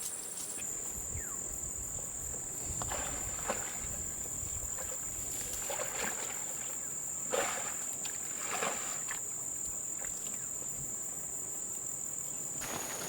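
Insects in the jungle giving a steady, high-pitched drone. A few short, soft swishes or knocks sound over it, about three, six, seven and a half and eight and a half seconds in.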